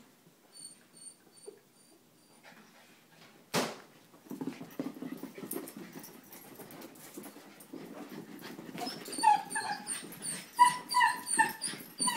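Sheltie and German Shepherd puppy play-fighting: one sharp bark about three and a half seconds in, a stretch of low growling, then a quick run of high-pitched yips near the end.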